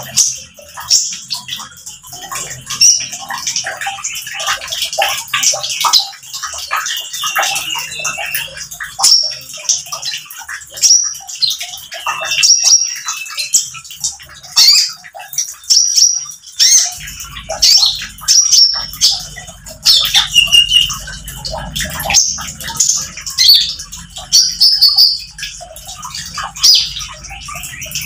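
A caged konin (sunbird) singing in quick, repeated bursts of high, sharp chirps and trills, the full rapid song that keepers call "nembak".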